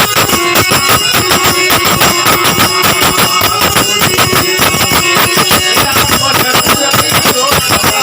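Loud live bhajan music with a fast, steady percussion beat under sustained tones.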